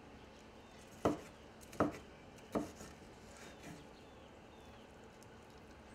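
A large knife chopping pork on a wooden cutting board: three sharp chops less than a second apart, starting about a second in, then a couple of fainter knocks.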